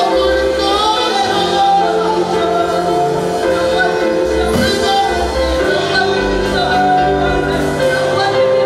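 Worship song: singing over instrumental accompaniment with held chords and a bass line.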